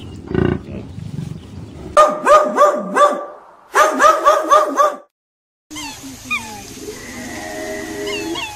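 A dog barking in two quick runs of short, high yelps, about five or six in each. It is followed, after a brief gap, by a busy mix of short falling bird chirps and calls.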